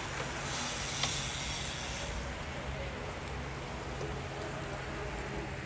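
A steady rush of many road bicycles riding past on tarmac: the hiss of their tyres, louder in the first two seconds as a bunch passes close, with a single small click about a second in.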